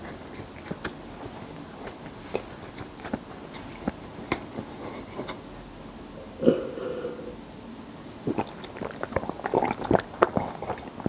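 Close-miked chewing of a sesame-coated honey bread, with scattered sticky mouth clicks. About six and a half seconds in, a loud gulp of milk is heard. Near the end the chewing gets busier and more frequent.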